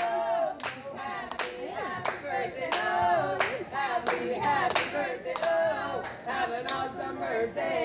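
A group of voices singing a song to steady rhythmic clapping, about two claps a second.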